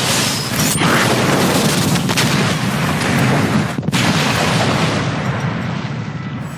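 A large stone mansion blowing up: a chain of explosions, a dense, continuous rumble with a few sharper blasts in it, easing off near the end.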